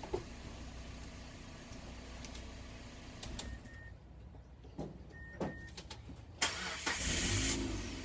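Car engine idling, switched off about three and a half seconds in; a few clicks and two short high beeps follow, then the starter cranks and the engine restarts near the end and settles back to idle.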